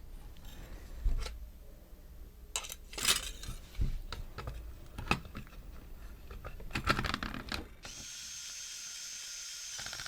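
Scattered clicks and knocks of small parts being handled, then a steady high-pitched whir for about two seconds near the end.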